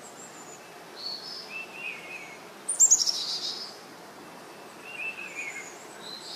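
Wild birds calling: one loud, rapid run of high notes falling in pitch about three seconds in, with softer whistled phrases before and after it.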